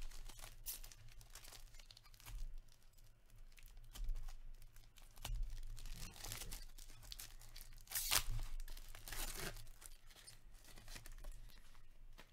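Wrapper of an Upper Deck SP Game Used hockey card pack being torn open and crinkled by hand in irregular rustling bursts, loudest about eight seconds in.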